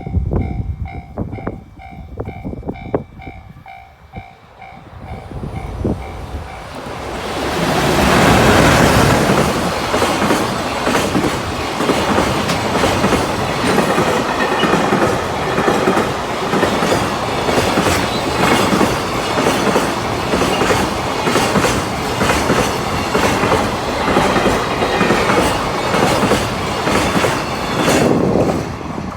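Level-crossing warning bell ringing in a steady repeating pattern. About seven seconds in, a freight train hauled by an EH500 electric locomotive rolls loudly through the crossing, its wagons clattering over the rail joints for about twenty seconds. The noise eases near the end.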